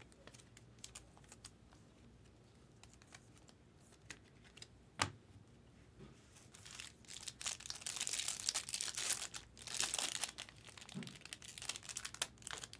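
Foil wrapper of a 2023 Topps Chrome trading-card pack crinkling and tearing as it is opened by hand. The crinkling starts about halfway through and carries on to near the end, after a single sharp click a little before it.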